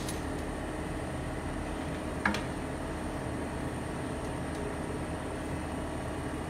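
Steady machine hum with several steady tones, and a single sharp click about two seconds in as a lead or fitting is snapped onto the injector on the test bench.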